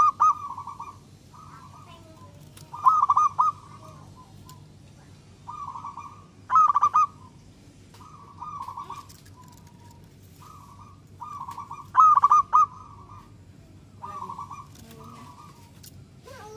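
Zebra dove (perkutut) cooing: phrases of rapid, rolling coo notes repeated every few seconds, four of them loud with softer phrases between.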